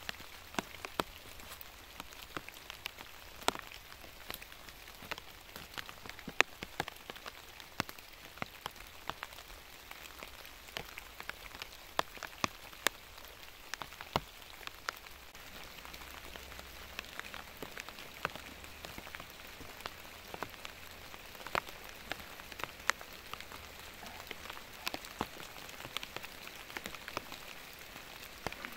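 Steady rain falling in a forest, with many irregular sharp ticks of single drops striking close by.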